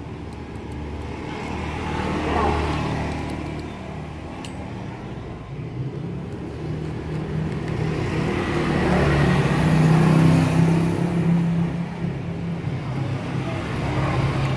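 Motor traffic engine noise that swells louder about two seconds in and again, louder and longer, around ten seconds in, like vehicles going past.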